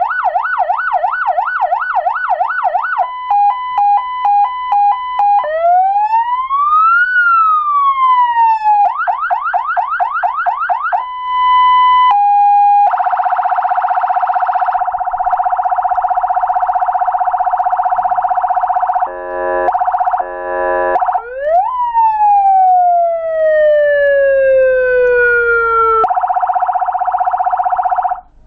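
Electronic siren from a roof-mounted LED light bar's built-in speaker, stepping through its tones: a fast yelp, a hi-lo two-tone, a slow rising and falling wail, another fast yelp, then a buzzing horn tone broken by short stuttering blasts, a long falling sweep, and the horn again before it cuts off suddenly.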